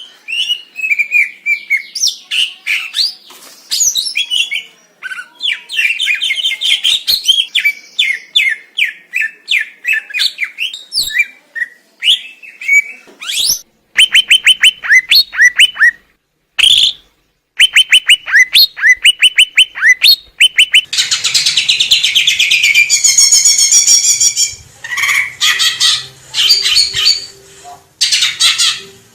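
Green leafbird (cucak ijo) singing: a fast, varied run of chirps, whistles and rapid down-slurred notes, broken twice by very short silences. The second half turns into dense, continuous warbling with a faint low hum beneath it.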